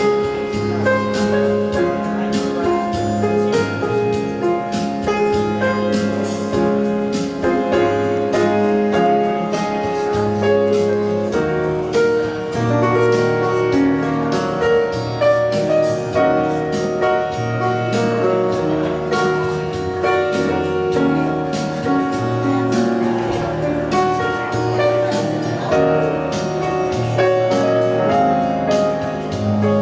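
Background music: piano-led instrumental track with a steady beat and a repeating bass line.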